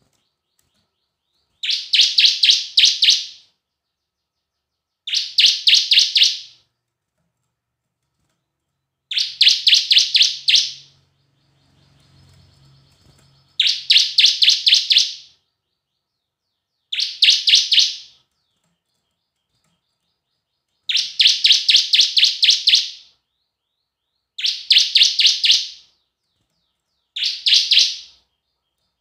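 Bar-winged prinia (ciblek) singing: eight loud phrases, each a quick run of sharp, evenly repeated notes lasting one to two seconds, with short pauses between them.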